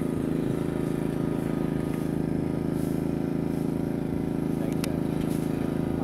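Steady low mechanical hum of a running engine, with a single faint click near the end.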